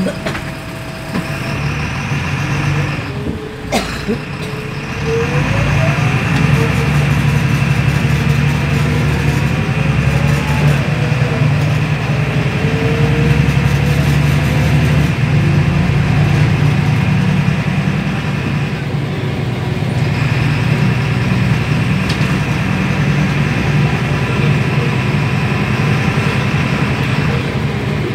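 MAN NL222 city bus's diesel engine droning under way, heard from inside the passenger cabin; the engine sound grows louder about five seconds in and then holds steady.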